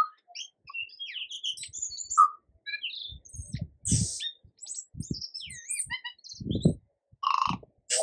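Tui singing a rapid, varied string of short whistles, gliding notes and clicks, with several low thumps in between.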